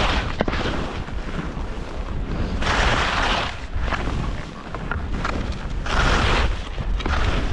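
Skis hissing and scraping over snow through a series of turns, the noise swelling with each turn, three times, over a low rumble of wind on the microphone.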